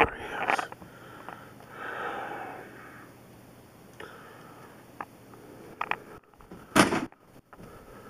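A person's sniffing and breathing close to the microphone, with a few sharp handling clicks and a short, loud rustle about seven seconds in.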